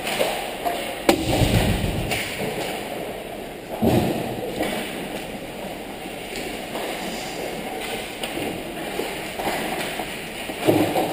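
Ice hockey play heard from behind the goal: a steady hiss of skates on the ice, broken by a sharp crack and low thud about a second in, and further thuds near four seconds and at the end.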